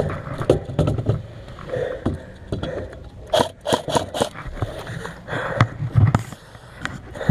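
Close scraping and rustling from movement on a worn camera, with sharp clicks and snaps scattered through it and a quick run of four or five about three and a half seconds in.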